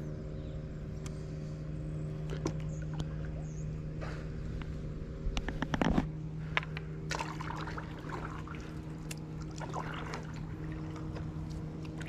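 Light water splashing and dripping around a stand-up paddleboard, with scattered small knocks and a cluster of louder ones about six seconds in, over a steady low hum.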